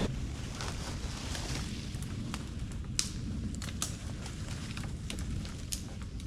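A dead oak branch being dragged over the forest floor, with footsteps and scattered sharp cracks of twigs snapping.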